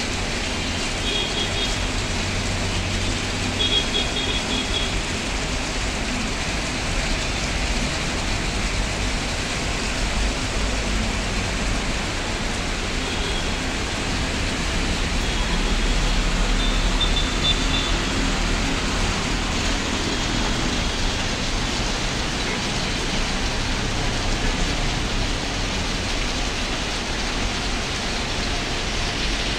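Heavy rain falling steadily, a dense even hiss, with the low rumble of street traffic underneath that swells about halfway through.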